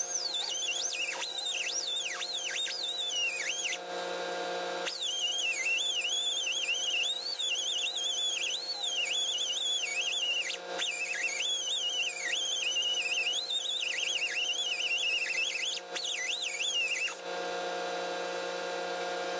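Small handheld electric grinder grinding on the steel strap mount of a truck frame. Its high whine wavers in pitch as it bears into the metal. It breaks off briefly three times and stops near the end, leaving a steady hum.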